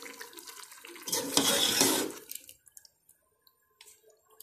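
Mutton and yogurt sizzling in an aluminium pressure cooker as they are stirred with a metal slotted spatula, frying on high heat to dry off the yogurt's water. The hiss swells loud about a second in, lasts about a second and a half, then drops away with a few light clicks of the spatula.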